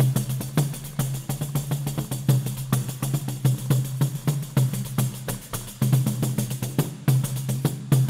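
Instrumental Brazilian choro played by a percussion ensemble: fast, even pandeiro strokes over steady low notes.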